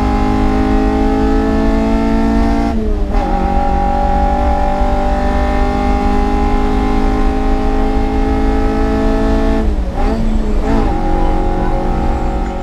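Mk2 Golf's engine driven hard on track, its pitch climbing slowly under load. Engine note breaks for a gear change about three seconds in, then dips and wavers briefly around ten seconds in, as on a lift or downshift, before pulling again.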